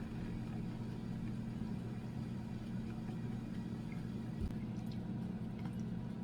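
Steady low electric hum of a motor or fan running at constant speed.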